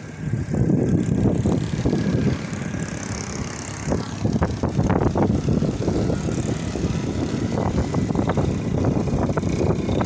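Strong, gusty wind blowing against the microphone, a low rumble that surges and eases.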